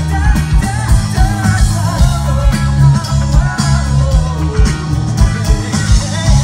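Live rock band playing loud through a PA: a man sings over a drum kit, bass and acoustic guitar, with steady regular drum beats underneath.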